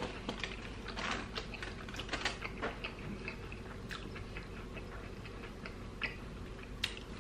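Close-miked chewing of a crunchy fried onion ring dipped in ranch: irregular small crunches and wet mouth clicks, busiest in the first few seconds, with a few sharper clicks later.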